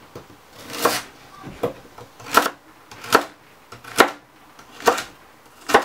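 A ceramic knife cutting through raw carrot onto a wooden cutting board, about seven strokes at an even pace of roughly one a second, each a sharp knock of the blade on the board.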